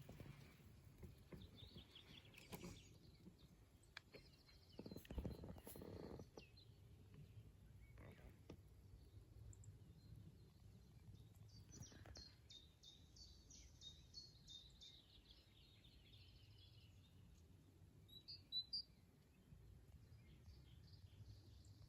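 Near silence with faint songbird calls: a quick run of high repeated chirps around the middle, a few shorter high calls before and after, and a few soft knocks and rustles.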